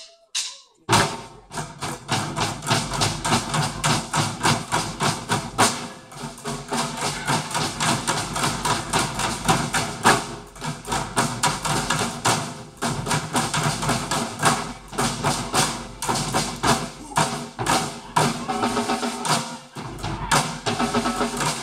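A bucket band playing: drumsticks beating plastic buckets together with snare drums and bass drums. After a couple of single hits, a fast, dense rhythm starts about a second in.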